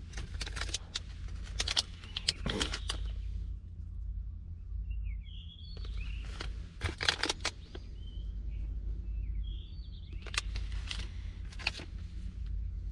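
Plastic tackle packaging crinkling and clicking as it is handled and set down, in three bunches, with short high bird chirps in between and a steady low rumble underneath.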